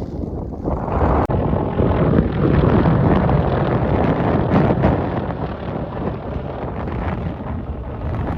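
Strong wind buffeting the microphone, a loud rumbling gusty noise that swells about a second in.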